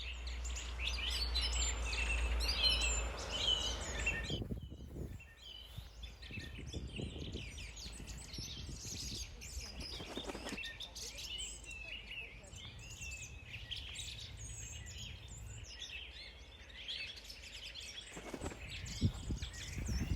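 Many small birds chirping and calling, overlapping, with a low rumble and hiss during the first four seconds.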